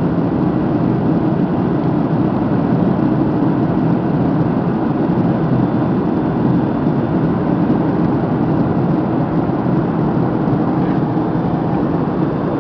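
Steady, even rush of jet engines and airflow heard inside the passenger cabin of a Boeing 767 climbing after takeoff.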